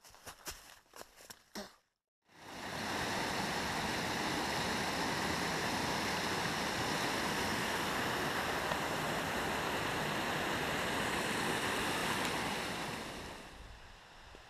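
Footsteps on leaf litter for the first couple of seconds, then a boulder-strewn mountain stream rushing steadily over rocks for about ten seconds, fading near the end.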